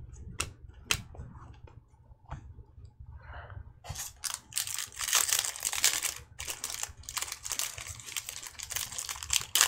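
Trading cards clicking as they are set down on a tabletop, then from about four seconds in the dense crinkling and tearing of a Topps Chrome foil pack wrapper being ripped open.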